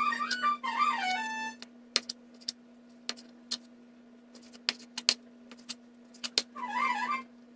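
Kitchen knife chopping raw chicken thigh into cubes on a plastic cutting board: sharp, irregular knocks about one or two a second, over a steady low hum. Background music with a wavering wind-instrument-like melody plays at the start and again near the end.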